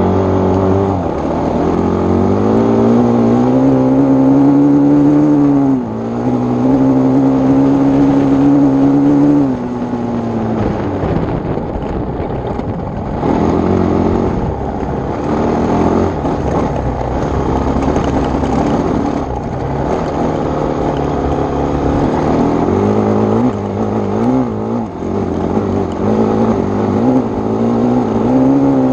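Honda CRF450X dirt bike's single-cylinder four-stroke engine running under riding load. Revs climb over the first few seconds and drop suddenly in pitch about six seconds in, then hold steady before easing off about ten seconds in. After that the revs rise and fall unevenly, with quick blips near the end.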